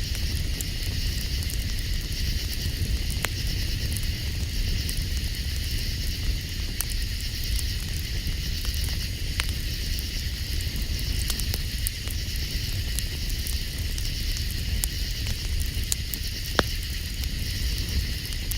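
Campfire crackling, with scattered sharp pops, over a steady high-pitched chorus of night insects and a constant low rumble.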